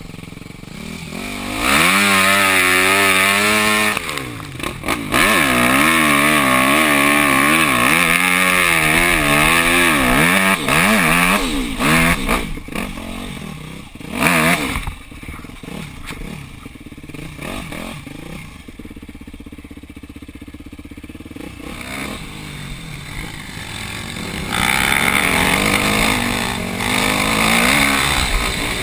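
Off-road motorcycle engine revving up and down hard as it climbs a dirt trail, with a few sharp knocks about twelve to fourteen seconds in. The engine drops to a lower, quieter note for several seconds midway, then pulls hard again near the end.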